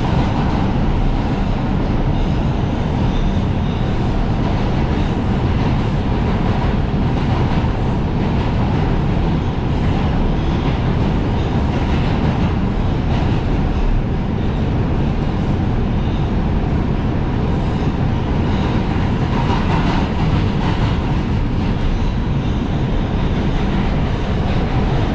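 New York City subway train running at speed through a tunnel, heard from on board: a steady rumble of wheels on rail with faint irregular clicks.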